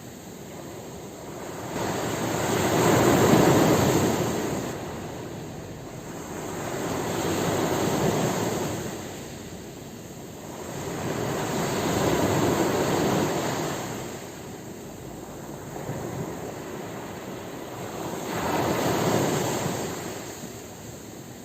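Ocean waves breaking and washing up the shore, a rushing surf that swells and fades in slow surges, one every four to five seconds.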